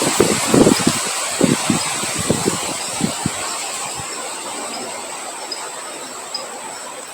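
Wind and rain: low gusts of wind thin out and die away over a steady hiss of rain, all slowly getting quieter. A thin, steady high insect drone runs on top, with faint repeated chirps near the end.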